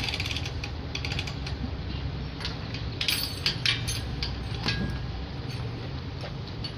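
Metal clinking and rattling, with a cluster of sharp clicks about three to four seconds in, over a steady low rumble.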